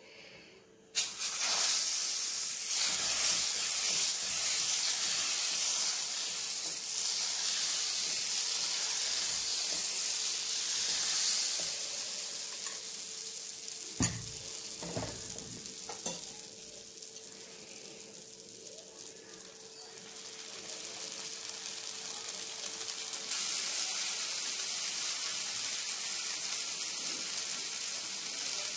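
Tomato dosa batter sizzling on a hot nonstick dosa tawa: a steady high hiss that starts abruptly about a second in, with a few knocks around the middle and a faint steady hum underneath.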